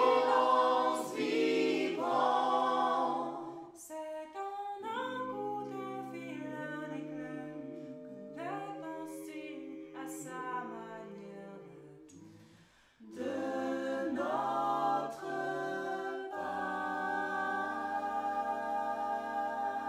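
A six-voice mixed a cappella jazz ensemble singing in harmony. The voices soften, fall almost silent about twelve seconds in, then come back in and hold a long sustained chord near the end.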